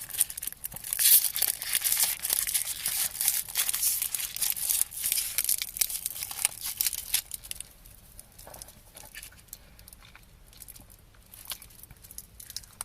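Crinkly cellophane twist wrapper of a Quality Street sweet being unwrapped, loud and crackling for about seven seconds. After that only a few faint crackles.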